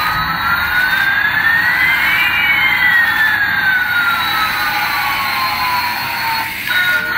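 Toy Airbus A380's electronic jet-engine sound effect: a steady hiss with two whines, one rising and one falling in pitch, crossing a little over two seconds in.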